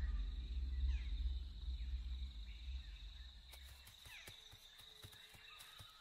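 Wild nature ambience: a steady thin high-pitched whine over a low rumble that fades away by about halfway, then scattered faint clicks and rustles.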